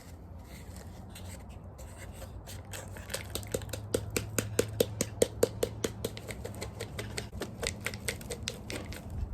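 A dried, hollow gourd being emptied of its seeds: a quick series of short hollow knocks and scrapes, about four a second, building from a few seconds in and loudest in the middle, over a low steady hum.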